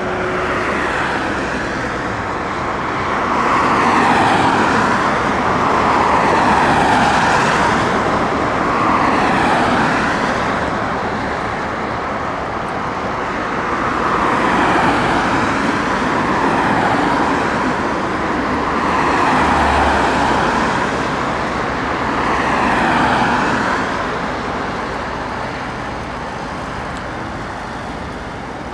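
Road traffic: about six vehicles passing by one after another on a highway, each swelling and fading over a few seconds, over a steady background of traffic noise.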